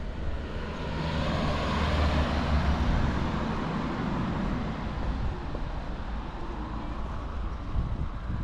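A car driving past on the street, its engine and tyre noise swelling to a peak about two seconds in and then slowly fading as it moves away.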